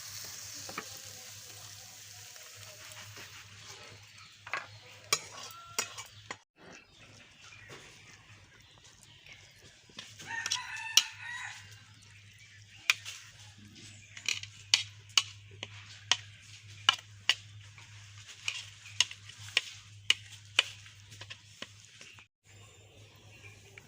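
A spoon knocking and scraping against the pan as the finished carrot halwa is dished out: many sharp clicks, irregularly spaced, with a faint sizzle at first. A rooster crows once, about ten seconds in.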